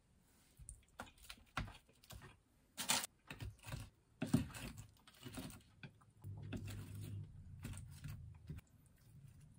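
Irregular light clicks and taps of kimbap slices and fried snacks being set down on a ceramic dish with tongs and chopsticks. A low hum joins about two-thirds of the way through.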